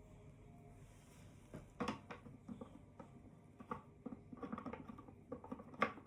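Handling noise from unboxing: a string of small irregular clicks, taps and rustles, starting a little under two seconds in, with the sharpest tap near the end.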